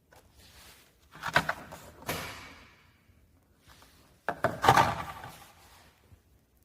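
Drawer-type skin vacuum packaging machine being worked, giving a few clunks and sliding clatters: two shortly after a second in, and a louder, longer clatter about four and a half seconds in.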